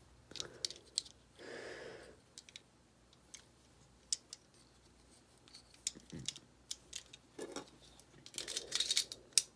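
Small metallic clicks and taps of a Ruger Mark IV pistol frame and its lockwork being handled during reassembly, with a quick run of clicks near the end.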